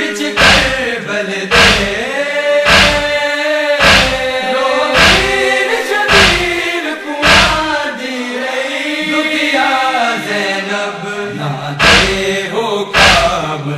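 Male voices singing a noha, a Shia lament, in a slow wavering melody, with chest-beating matam (open hands striking chests) marking a steady beat about once a second.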